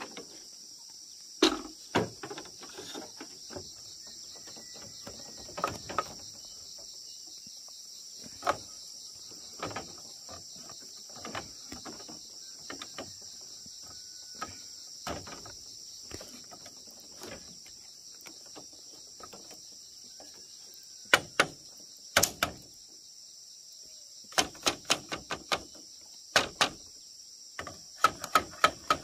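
Sharp knocks and strikes from hand-tool building work. They are scattered at first, with two loud strikes about 21 seconds in, then a quick run of strikes over the last five seconds. Under them runs a steady high-pitched insect drone.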